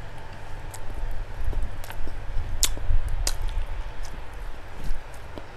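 Close-miked mouth chewing of rice and fatty pork, with wet smacking clicks and soft low thuds from the jaw; two sharp clicks stand out about two and a half and three and a quarter seconds in.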